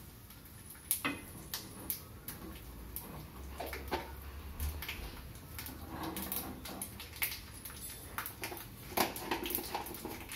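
Mustard seeds and other seasoning seeds spluttering in hot ghee in a small tempering ladle: irregular sharp pops and crackles.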